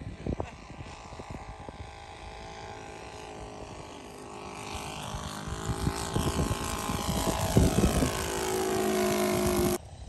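Engine of a radio-control scale F4B biplane running as the model makes a low pass, getting louder as it comes in and dropping in pitch as it goes by, then cutting off suddenly near the end.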